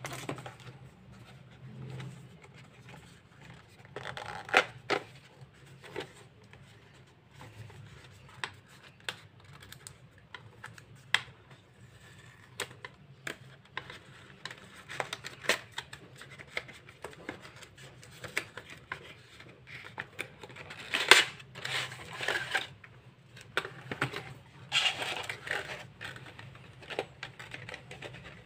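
Hands handling a cardboard box and a plastic pencil tray: scattered clicks, taps and rustling of the packaging, with louder rustling about two thirds through.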